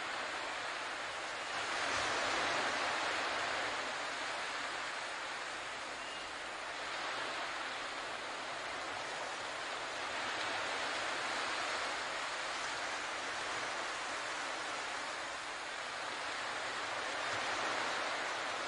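Ocean waves washing in, a steady hiss that swells and eases in slow surges every few seconds.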